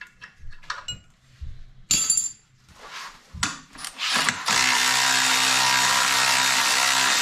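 A few metallic clinks and taps of a hand wrench, then from about four and a half seconds in a cordless electric ratchet runs steadily, spinning a bolt on the engine's cover.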